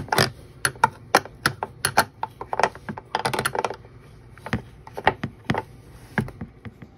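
Half-inch ratcheting wrench clicking as it backs a nut off a toilet's floor bolt: sharp, irregular clicks, several a second, that stop near the end.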